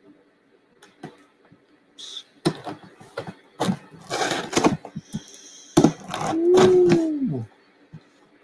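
A cardboard shipping box being handled and opened: a string of knocks and scrapes, a tearing rasp about four seconds in, and a longer falling squeal near the end.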